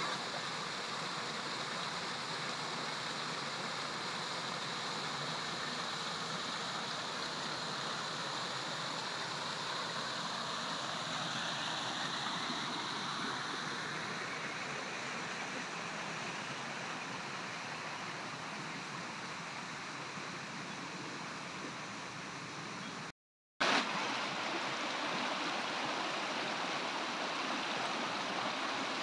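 A rocky bush creek running after heavy rain, its water rushing over rocks and a small cascade in a steady wash. The sound drops out for a moment about three-quarters of the way through.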